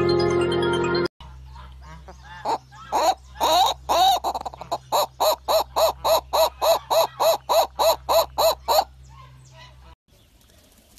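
A short burst of jingle music, then a turaco calling: a run of loud, pitched notes that starts uneven and settles into a steady series of about three a second before stopping. A low steady hum runs under the calls.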